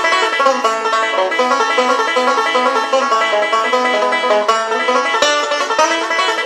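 Solo banjo being played, a quick, unbroken stream of plucked notes.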